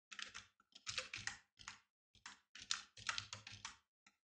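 Typing on a computer keyboard: short runs of quick key clicks with brief pauses between them.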